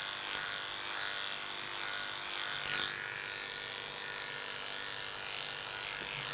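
Electric dog clippers fitted with an extension comb running steadily as they clip the coat on a dog's head and neck.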